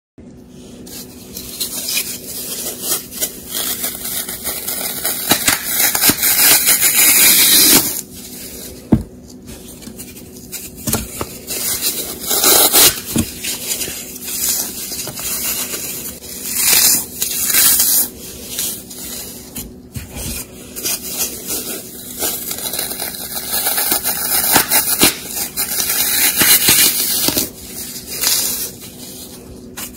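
Blocks of brown Sahara dry floral foam crunching and crumbling as gloved fingers press and break them. The crackling is dense and keeps coming in louder swells several times.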